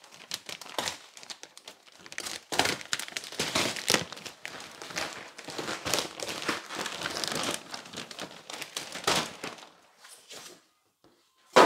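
Packaging being pulled and ripped off a new washing machine: wrapping crinkling and tearing in irregular handfuls, tailing off near the end.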